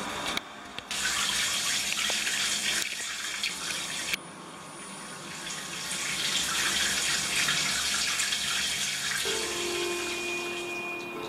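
Water running steadily from a tap or shower head, a continuous hiss that breaks off abruptly about half a second in and again about four seconds in before carrying on.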